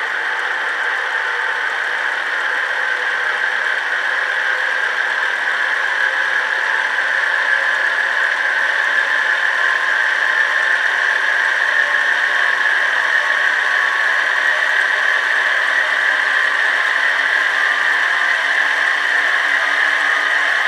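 Sampled running sound of a JNR 113 series electric train, its MT54 traction motors running steadily, played by a DCC sound decoder through a small model-railway speaker. It grows a little louder over the first half, then holds steady.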